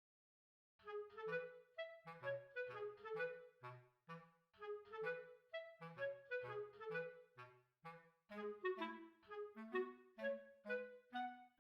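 Background music: a bouncy tune of short, detached notes over a bass line, starting about a second in after silence.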